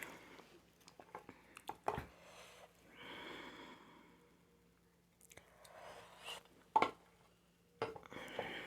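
Quiet close-up eating sounds: a few sharp mouth clicks and smacks of chewing, with soft breaths between them.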